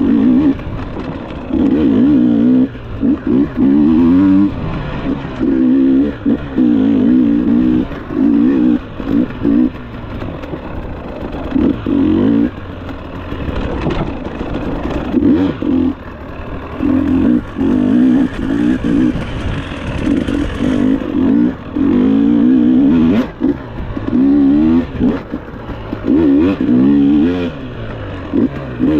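Enduro dirt bike engine revving up and dropping back in short bursts, one after another, as the throttle is opened and shut, with a few sharp knocks in between.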